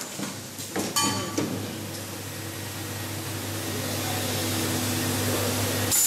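Automatic AC jack connector assembly machine running: a steady hum, with a short cluster of sharp metallic clacks about a second in as the tooling and fixture table move.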